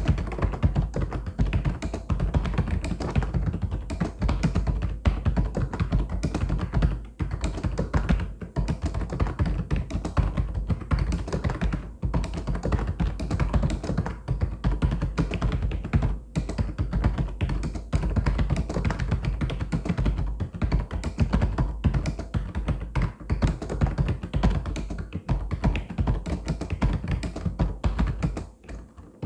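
Mechanical keyboard typing: fast, continuous keystroke clacks with a few short pauses.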